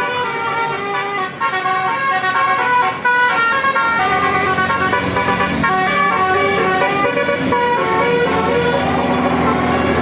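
Bus telolet horn, a set of multi-tone horn trumpets on a bus, playing a tune of quickly stepping notes, several sounding together. A low hum comes in under the horn about four seconds in.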